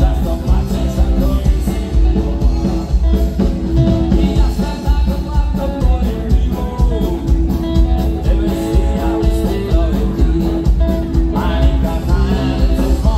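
Live band playing amplified music: electric guitars, bass and a drum kit keeping a steady beat, with singing over it.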